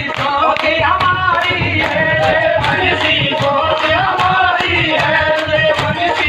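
Devotional bhajan singing with instrumental accompaniment and a steady percussion beat.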